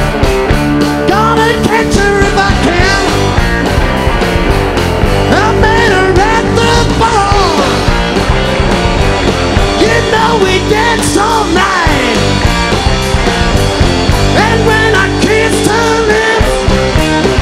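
Rock band playing live, loud and continuous.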